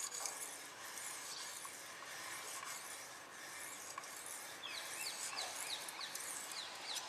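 Stainless-steel kitchen knife edge rasping across a fine sharpening stone in quick repeated strokes under light pressure, in the finishing stage after the coarse stone. From about halfway through, birds chirp in the background in short falling calls.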